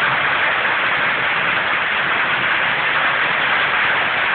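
Hail falling hard, a dense steady hiss of hailstones and rain pelting down.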